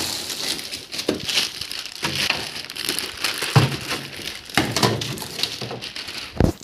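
Plastic wrapping and cardboard packaging crinkling and rustling as a car wind visor is pulled out of its box and plastic sleeve, with irregular sharper crunches throughout.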